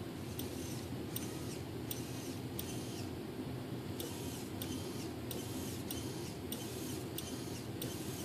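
Retract servo of a model glider's retractable motor system, out of its case and unloaded, driven back and forth from the transmitter: a quick run of short motor whines, each starting with a click, about two a second with a brief pause about three seconds in, over a steady low hum.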